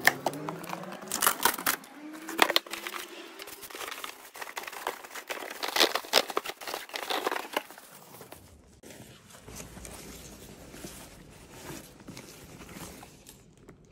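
Packaging being handled as a cardboard gift box is opened: crinkling, tearing and crackling of paper and card with many small clicks. After about eight seconds it drops to soft rustling of the fabric dust bag.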